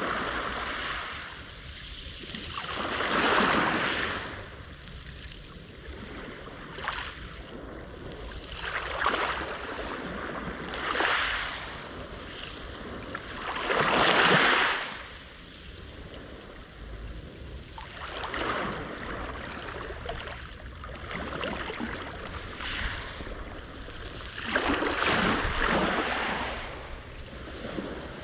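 Black Sea waves breaking on the shore. They wash in irregular swells every few seconds, the loudest about halfway through.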